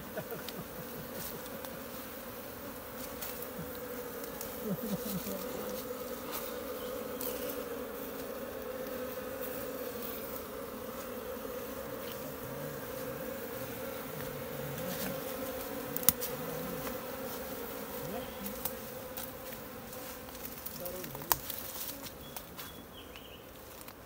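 A colony of wild honey bees humming steadily in a cut-open tree trunk, with two sharp clicks in the second half.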